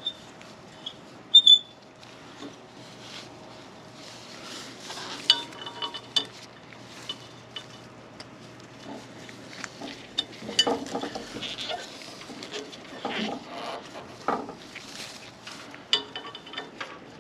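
Scattered clicks and light metallic clinks, some with a short ring, mixed with rustling handling noise: metal fixture parts being handled and fitted.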